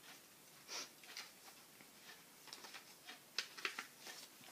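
Pages of a thick book being turned by hand: a scattered series of faint, short paper rustles and soft ticks, a few bunched together about three to four seconds in.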